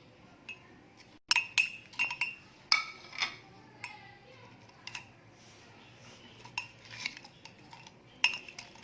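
A spoon clinking against a drinking glass as tamarind pulp is put in on top of palm sugar: about ten irregular clinks, each with a short glassy ring, with a quieter gap in the middle.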